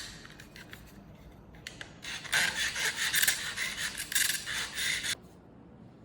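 Scratchy rubbing and tearing of an iPhone box's packaging as it is opened, lasting about three seconds and stopping abruptly.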